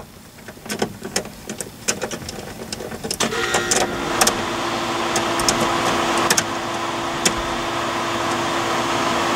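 Scattered clicks of a ratchet and socket and of plastic trim being handled as the 7 mm instrument-cluster bolts are done up. About three seconds in, a louder steady mechanical hum with a constant tone starts and keeps running under the later clicks.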